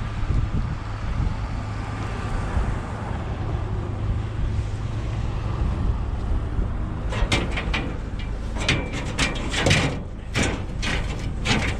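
Vehicle engine idling with a steady low hum. From about seven seconds in comes a rapid run of clanks and knocks: scrap metal being picked up and handled.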